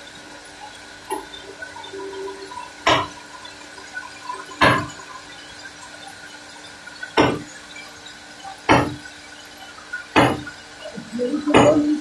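Band sawmill machinery running with a steady hum, with six short, sharp noisy bursts at uneven intervals of about one and a half to two and a half seconds.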